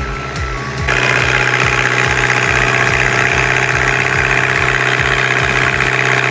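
Vehicle engine running loudly and steadily, coming in suddenly about a second in, over music with a thumping bass beat that stops near the end.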